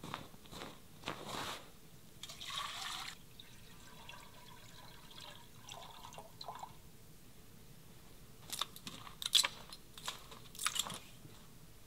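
Kitchen handling noises: scattered clicks and knocks, a short splash of liquid about two seconds in, and a cluster of sharper, louder knocks near the end.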